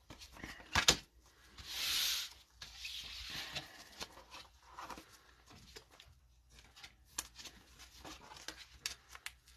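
Trading cards being handled with nitrile-gloved hands: soft rubbing and sliding of card stock with small clicks, and a brief rustle about two seconds in.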